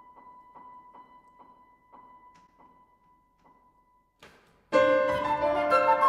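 Piano repeating a single high note, the strokes slowing and fading. About four and a half seconds in, flute and piano break in together with a sudden loud flourish of many notes, the close of the piece.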